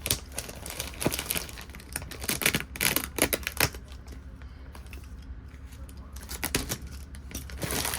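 Cardboard box and packaging tape being cut and pulled open by hand: a run of sharp clicks, scrapes and tearing in the first half, quieter for a few seconds, then crinkly rustling of packaging near the end. A steady low hum runs underneath.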